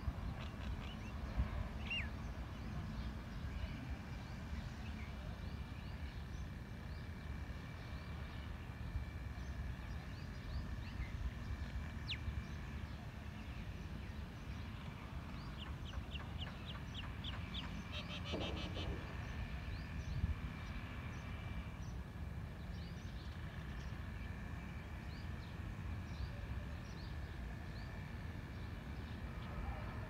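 Small birds chirping and calling here and there, with a fast run of chirps about sixteen seconds in, over a steady low rumble.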